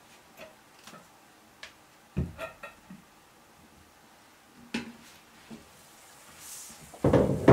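Kitchen handling sounds of glass preserving jars and a plastic funnel being picked up and set down on a cloth-covered table: scattered light knocks and a brief cluster of glassy clinks, then a louder clatter near the end.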